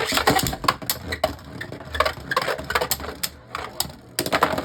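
Beyblade Burst spinning tops clashing and scraping inside a plastic stadium: a rapid, irregular run of clicks and clacks. Near the end comes a louder clatter of hits as one top bursts apart, a burst finish.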